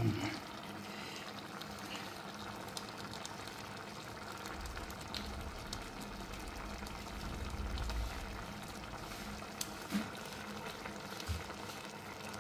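Pot of lentil dhal simmering on a gas stove: steady bubbling with small pops, and a low rumble for a few seconds in the middle.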